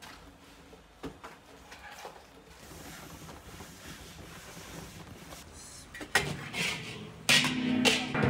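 A faint, steady hiss with a few light clicks, then from about six seconds in loud metallic clanks and ringing as a large steel bowl is handled over a cast-iron pilaf kazan. The loudest clank comes just after seven seconds.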